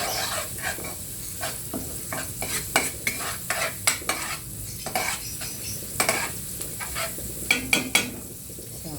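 Mixed vegetables sizzling in a frying pan while a utensil stirs them, scraping and clicking against the pan many times.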